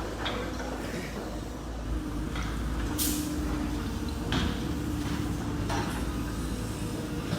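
Steady low outdoor rumble with a faint droning hum from about two seconds in, and a few brief hissing noises.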